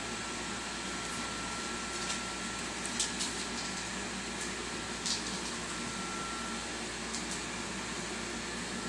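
Steady fan-like room hiss with a thin faint tone, and a few soft clicks and taps scattered through it.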